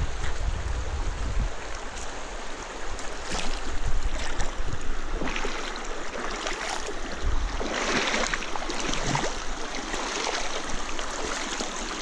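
Shallow river running over a stony bed, a steady rushing of water. Wind buffets the microphone with a low rumble in the first second or so.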